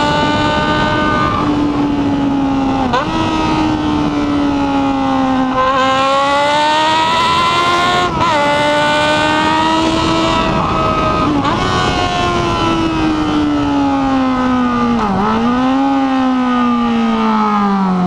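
Yamaha XJ6 N motorcycle's 600 cc inline-four engine running under way, loud. Its pitch drifts up and down as the throttle opens and closes, with several quick jumps and dips as it changes gear or speed, the sharpest dip about fifteen seconds in.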